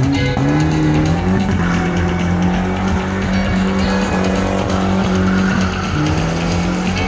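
A show vehicle's engine revs up sharply and is held at high revs for several seconds, dipping briefly near the end, with tyre squeal over arena music.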